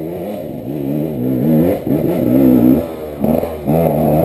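Enduro dirt bike engine revving hard as the rider climbs a steep dirt trail, the throttle opened and eased again and again so the pitch rises and falls; it grows louder as the bike nears.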